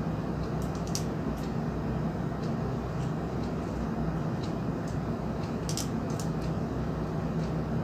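Steady low hum and hiss, with faint small clicks and ticks scattered through.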